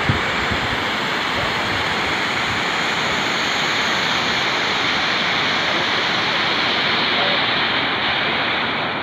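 Ouzoud waterfalls: a steady rush of falling water.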